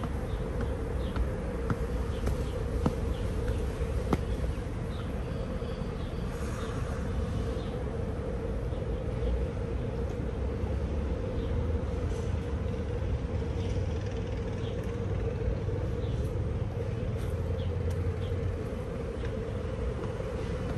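Street ambience on a walk: a steady buzzing hum over a low traffic rumble, with scattered light clicks of footsteps.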